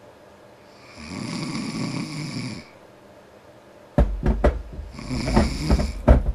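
A sleeping man snoring: one long, slow snore about a second in, then from about four seconds in a louder, rougher snore broken by several sharp jolts.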